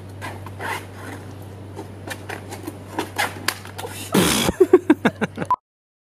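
Breathy giggling in short bursts that breaks into a loud burst of laughter about four seconds in, followed by a few quick laughs. The sound then cuts off suddenly with a short beep.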